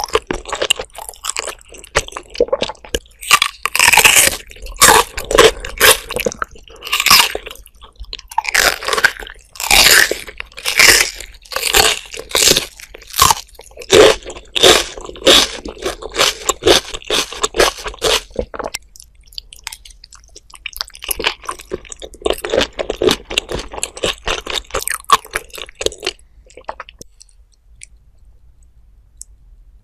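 Close-miked chewing of raw shrimp with fish roe, one mouthful bite after bite. The chewing stops for about two seconds a little past halfway, starts again, then dies down for the last few seconds.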